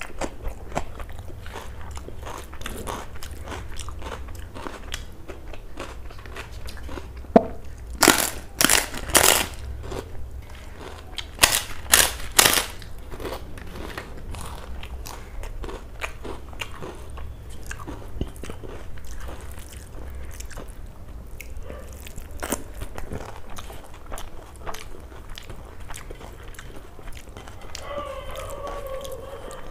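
Close-miked eating: chewing and wet mouth sounds of rice and curry eaten by hand, broken by two clusters of loud crunching bites into crisp fried papad, about 8 and 12 seconds in. A low steady hum runs underneath, and a short pitched hum comes near the end.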